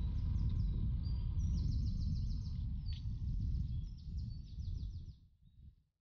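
Wind rumbling on the microphone, with birds calling in quick runs of repeated high notes through the middle. It all cuts off abruptly shortly before the end.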